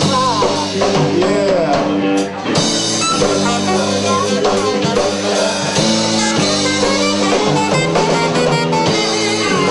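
Live rock band playing an instrumental passage: electric guitar and drum kit with a saxophone.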